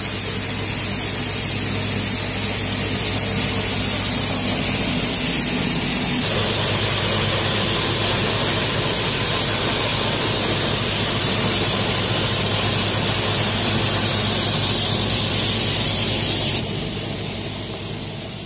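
Paddy winnowing machine running: its fan gives a steady rushing hiss as paddy pours through the hopper and chaff is blown out, with a low steady hum beneath. The tone shifts about six seconds in, and the sound drops and fades away near the end.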